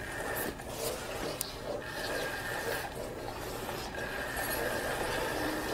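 Battery-powered motorized cat toy running: a steady rasping and rubbing as its wand sweeps around under the round fabric cover, with a thin motor whine that drops out and comes back twice, and a few light ticks.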